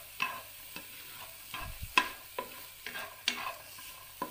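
Spatula scraping and tapping against a non-stick frying pan, stirring sliced shallots and garlic sautéed dry without oil, in quick irregular strokes; the loudest knock comes about two seconds in.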